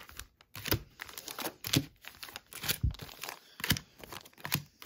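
Foil-wrapped Optic football trading card packs crinkling as they are handled and laid out on a table, in a string of short, irregular crackles.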